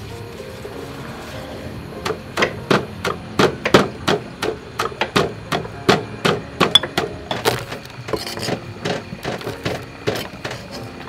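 Pestle pounding in a mortar: a steady run of knocks about three a second, starting about two seconds in and growing lighter near the end.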